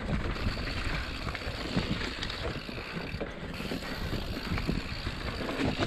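Mountain bike riding down a dirt woodland trail: tyres rumbling over the ground with frequent knocks and rattles from the bike over bumps, and wind on the microphone.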